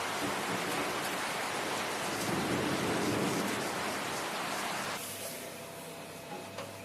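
Rain falling hard, a steady hiss, with a low rumble swelling in about two to three seconds in. The rain noise cuts off abruptly about five seconds in, leaving a fainter hiss.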